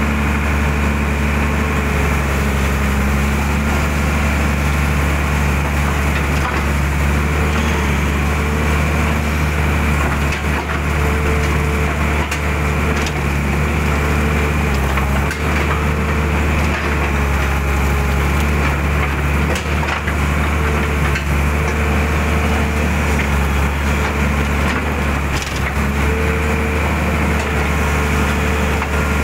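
Hydraulic excavator's diesel engine running steadily under load as it digs mud out of a ditch, with a higher hydraulic whine that comes and goes several times as the boom and bucket work, and a few faint knocks and crunches.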